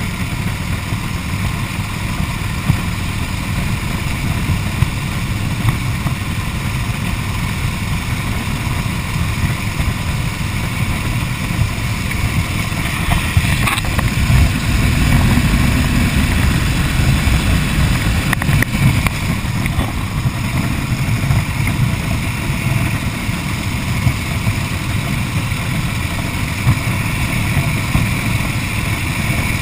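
1929 Harley-Davidson JDH two-cam V-twin engine running under way at road speed, mixed with wind rush on the chest-mounted camera. It gets louder for a few seconds about halfway through.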